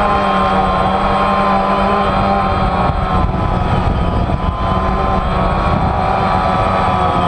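DJI Phantom quadcopter's four propellers and electric motors buzzing steadily in flight, recorded from the drone's own onboard camera, with the pitch wavering slightly as the motors adjust. A low rumble runs underneath.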